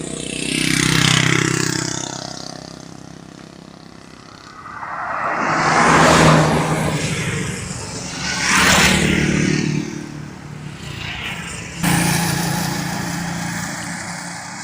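Road traffic going by: three vehicles swell up and fade past, about a second in, around six seconds and near nine seconds, with a sudden louder rise near twelve seconds, over a steady low engine hum.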